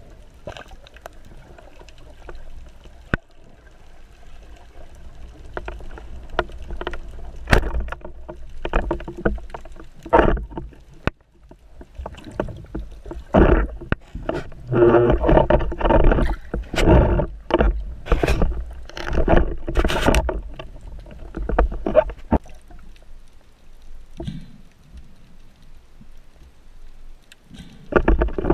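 Underwater water noise against an action camera's housing while freediving: low rushing and scattered sharp knocks and clicks, with a long spell of loud churning and knocking about halfway through.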